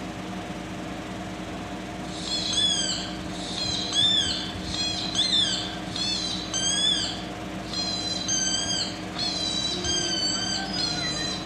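A white husky-type dog whining and yodelling through a phone's speaker: about nine short, high-pitched calls in a row, each bending up and down in pitch, starting about two seconds in, over a steady low hum.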